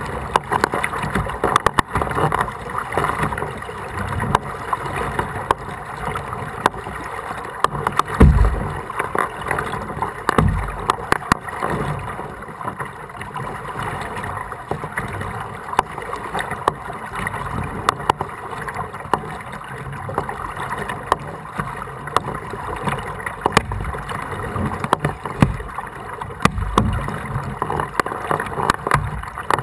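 Kayak being paddled through floodwater: paddle splashes and water sloshing against the hull, with many small clicks and drips and a few low thumps.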